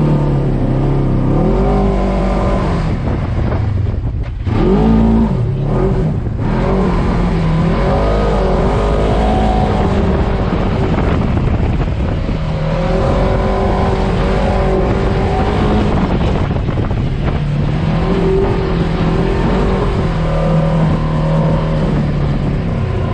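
Polaris RZR XP 1000 UTV's parallel-twin engine running hard and revving up and down over and over, its pitch rising and falling with the throttle; a short drop about four seconds in is followed by a sharp rev.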